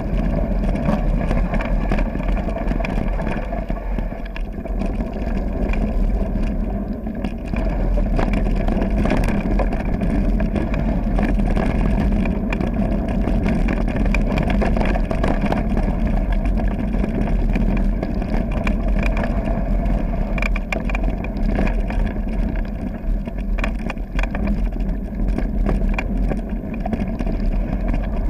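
Continuous wind rush and rumble on a mountain biker's camera microphone as the bike rolls fast along a gravel trail, with short rattles and knocks from the bumps.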